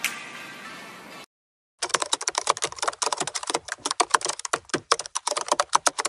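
Intro music fading and cutting off about a second in, then after a brief gap, rapid keyboard typing clicks: a typing sound effect laid over text being typed out on screen.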